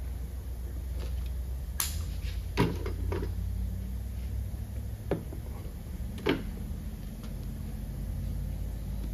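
A few sharp clicks and knocks, about five spread over several seconds, from the adhesive applicator gun being handled and pulled away from the repair. Under them runs a steady low rumble.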